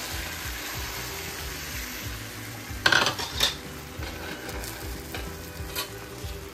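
Omelette mixture of egg and chopped vegetables sizzling in ghee on a hot tawa, with a few sharp clinks of a utensil against the pan about three seconds in and again near the end.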